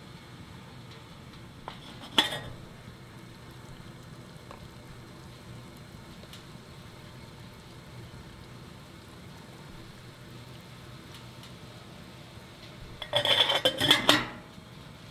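Stainless steel kettle lid lifted off with a single sharp metallic clink about two seconds in, then a quick run of clattering and rattling near the end as the lid is set back on the kettle and the wire handle is taken.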